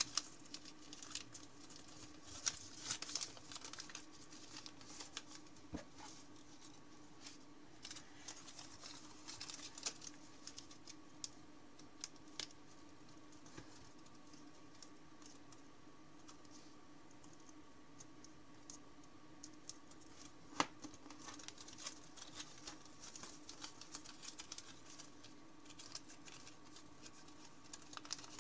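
Thin origami paper rustling and crinkling as it is folded and creased by hand, with irregular soft clicks and taps in bursts and one sharper click about two-thirds through, over a faint steady hum.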